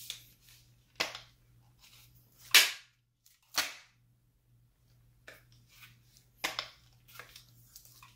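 Folding skeleton brace on a CZ Scorpion EVO being swung and snapped into its locked positions: a series of sharp, separate clacks, the loudest about two and a half seconds in.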